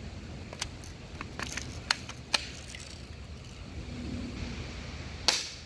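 Plastic toy blaster gun being handled: a few sharp clicks between about half a second and two and a half seconds in, then one louder crack near the end as it is fired.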